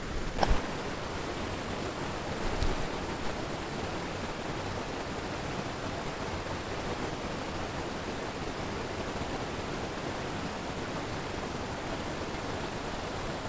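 Steady rush of stream water running over rapids. A couple of brief knocks sound in the first few seconds.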